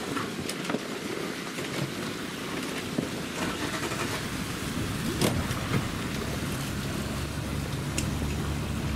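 Water lapping and splashing around an African bull elephant swimming almost submerged, with scattered short splashes, the loudest about five seconds in. A steady low rumble underneath grows stronger in the second half.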